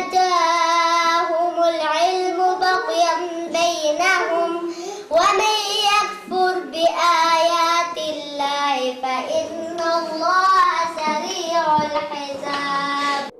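A boy's voice singing a melodic chant, with long held notes that bend up and down in pitch; it cuts off abruptly at the end.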